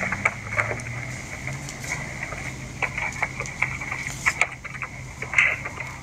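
Footballs being kicked on grass with scuffing feet: a scatter of short knocks and scuffs over a steady high tone and a low hum, with one louder burst about five seconds in.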